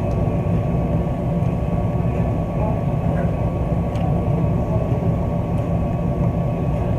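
Steady mechanical drone of commercial laundry machines running, a low rumble with a constant hum and a few faint ticks.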